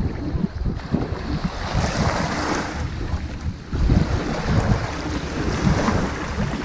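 Ocean waves washing onto a sandy beach: two surges of surf hiss, one building about two seconds in and another about four seconds in, over a constant low rumble.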